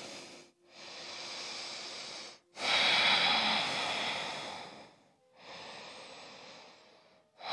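A woman breathing audibly close to a microphone: three long, breathy breaths of about two seconds each, with short pauses between them and the middle one loudest.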